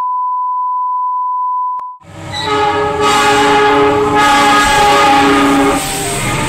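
A steady 1 kHz test tone with the colour bars, cutting off after about two seconds. Then a diesel locomotive passes close with its horn held, a chord of several steady notes over the rumble of the engine and wheels.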